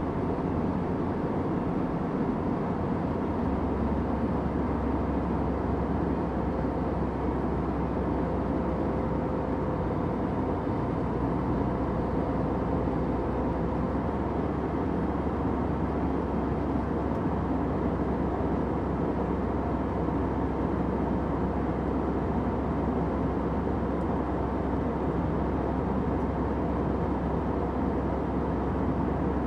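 Airplane cabin noise: a steady, even rush with a low hum beneath it, and a faint thin tone that comes in for several seconds near the middle.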